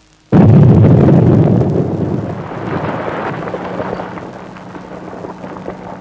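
A gunpowder charge blasting in a stone quarry: one sudden, very loud blast about a third of a second in, followed by several seconds of rock and debris clattering down as the sound fades.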